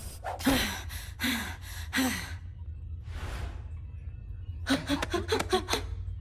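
A cartoon character's pained gasps and grunts: a run of short, sharp breaths, one long breathy sigh a little past halfway, then a tighter cluster of strained gasps near the end, over a steady low musical drone.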